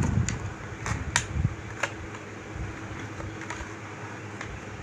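Packaging being handled and opened: scattered sharp clicks and a couple of dull thumps of a box and its contents, over a steady hum like a fan.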